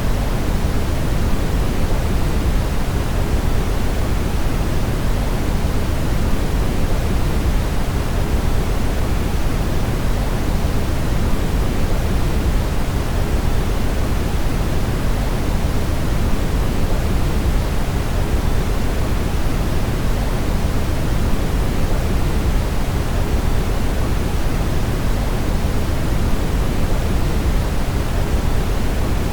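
Steady brown noise: a continuous, even rumbling hiss weighted toward the low end, with no changes or events.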